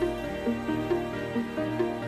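Background music: a repeating pattern of short notes, about four or five a second, over a low held tone.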